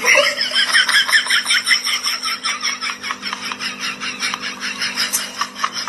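A bird chirping in a fast, steady run of short notes, several a second, over a steady low hum.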